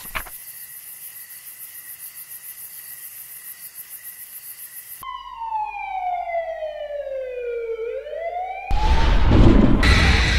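A faint steady hiss, then, about five seconds in, a smooth wailing tone that glides steadily down in pitch for about three seconds and bends back up. Near the end a sudden loud burst of noise cuts in and stays loud.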